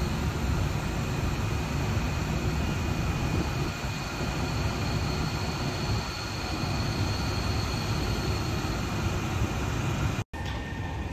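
Light-rail trams in an underground station: a steady low rumble with a thin, steady high whine. The sound cuts out for an instant near the end.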